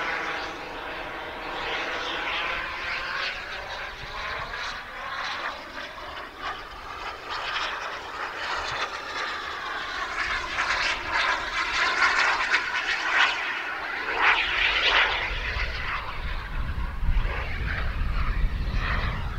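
Turbine engine of a radio-controlled Gloster Javelin scale jet, a steady jet hiss that swells and fades as the model makes fast passes, loudest about two-thirds of the way through. Wind rumbles on the microphone in the last few seconds.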